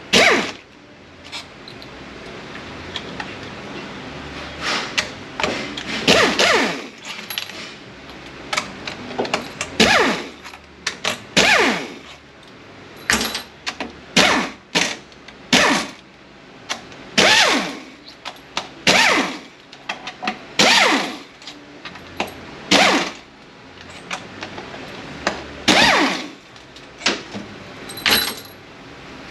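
Power tool running in short bursts, some fifteen of them a second or two apart, with light metal clinks between: bolts being spun out one after another to free the 8L90 transmission's valve body.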